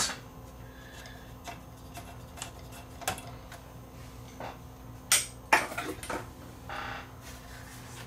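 Scattered light clicks and knocks of test probes and tools being handled on a workbench, the loudest cluster about five seconds in, with a short scrape near the end. A faint steady low hum runs underneath.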